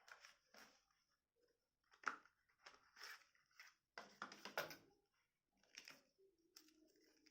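Faint handling noises of a smartphone and its packaging: scattered soft rustles and taps. A low hum comes in about six and a half seconds in.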